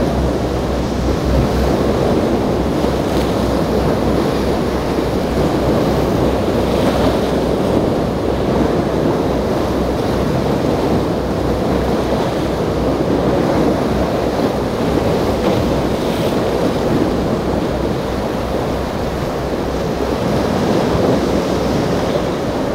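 Steady rushing of breaking waves and churning surf, with wind buffeting the microphone, as a large motor yacht plows through rough inlet water.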